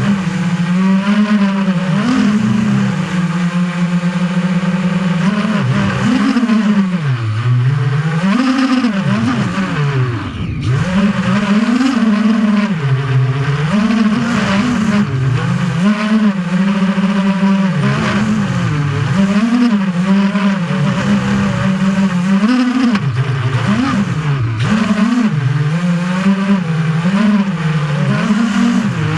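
FPV quadcopter's electric motors and propellers buzzing as picked up by the camera mounted on the drone, the pitch rising and falling constantly with the throttle. About ten seconds in the pitch drops steeply and comes back, as the throttle is cut and then opened again.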